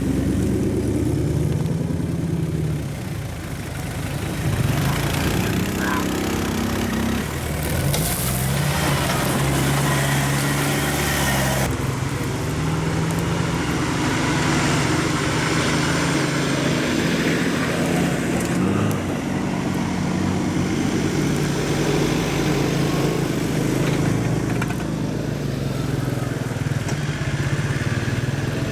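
An off-road 4x4's engine running under load and being revved, its pitch rising and falling again and again, with a stretch of harsher noise about eight to twelve seconds in.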